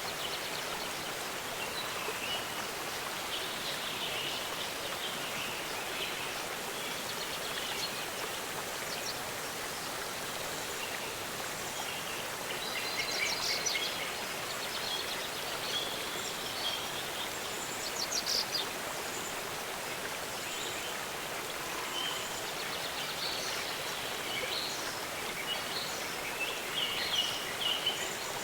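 Waterfall rushing steadily, with small birds chirping and trilling on and off over it, busiest about halfway through, again a few seconds later, and near the end.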